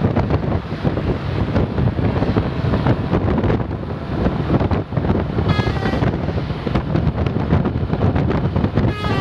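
Heavy wind buffeting the microphone over a passing bus, with a short burst of a multi-note telolet (basuri) horn a little past halfway.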